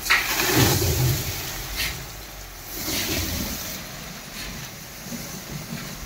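A dump truck tipping a load of sand down an embankment. The sand pours and slides with a steady rushing hiss, over the truck's engine running and revving, which swells about half a second in and again around three seconds in.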